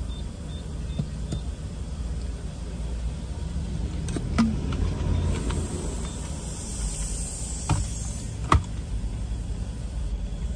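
Steady low rumble of a car idling, heard from inside the cabin, with a few light clicks and knocks from about four seconds in and a soft hiss for a couple of seconds in the middle.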